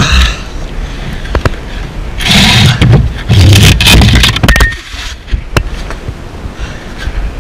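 Loud scraping and rustling close to the microphone in two long stretches, starting about two seconds in and again about three and a half seconds in, with scattered knocks: a cardboard box and clothing rubbing past the attic hatch frame as the box is carried down.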